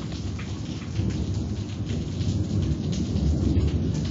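Rain falling in a thunderstorm, with a low rumble underneath that grows louder about three seconds in.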